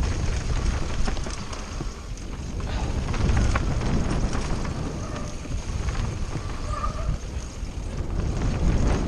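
Mountain bike descending a rough, rocky trail at speed: tyres crunching over stones and the bike rattling continuously, with wind rumbling on the on-board microphone.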